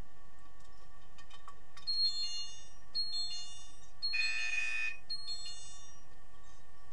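An underwater signal sounder of the kind underwater hockey referees use to signal players gives four electronic chime-like beeps about a second apart. The third beep is longer and the loudest. It is heard through an underwater camera over a steady background hiss.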